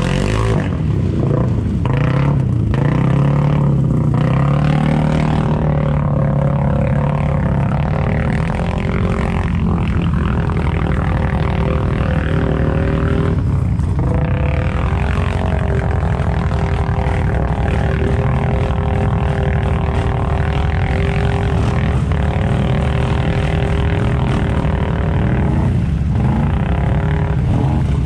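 ATV engines running and revving as the quads churn through deep mud, a steady drone with small swells in pitch.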